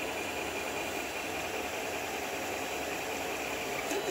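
Creality CR-10 3D printer running mid-print, a steady mechanical whir.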